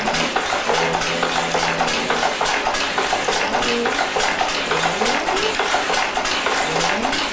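A Hattersley treadle loom weaving tweed: a fast, even mechanical clatter that goes on without a break. Twice in the second half, a low tone glides upward.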